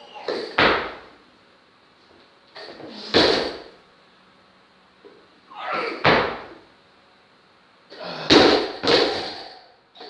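Loaded Olympic barbell with rubber bumper plates during two snatch repetitions: four heavy thuds and clanks about every two to three seconds. The loudest comes near the end, a double impact as the bar is dropped to the platform and bounces.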